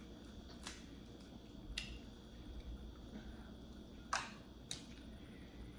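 Crawfish and crab shells snapping as they are cracked and picked apart by hand: four short sharp cracks, the loudest about four seconds in.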